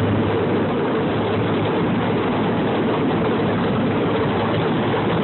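Miniature ride-on train running steadily along its track, its engine droning without change.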